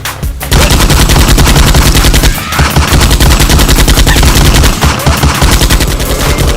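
Rapid, continuous machine-gun fire, very loud, starting about half a second in with brief lulls.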